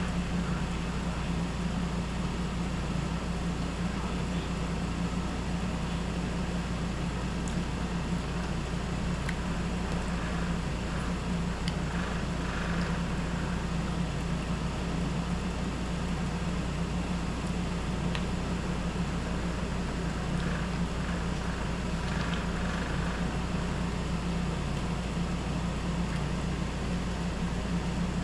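Window air conditioner running with a steady hum and rushing fan noise. A few faint clicks and taps from eating with a fork off a paper plate are heard now and then.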